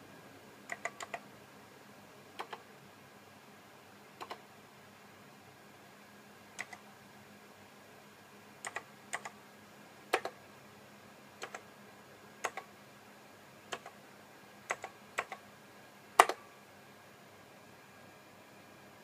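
Keys on a Macintosh Plus keyboard clicking in short clusters, a few presses at a time with pauses between, as numbers are typed into spreadsheet cells. The loudest press comes about 16 seconds in.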